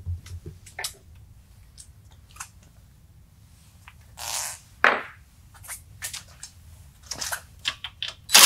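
Scattered light clicks and knocks of tools being handled at a rolling tool chest, with two brief scraping slides about halfway through. At the very end a cordless driver starts to run on a nut.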